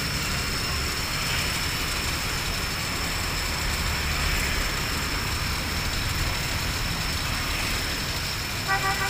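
Steady street traffic rumble, with a short vehicle horn beep near the end.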